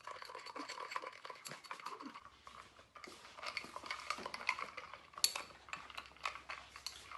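A spoon stirring a drink in a drinking glass, clinking repeatedly against the glass in quick, uneven taps.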